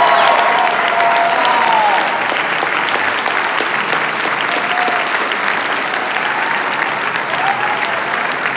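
Large theatre audience applauding continuously in a dense, steady mass of clapping, with a few voices calling out over it in the first second or so.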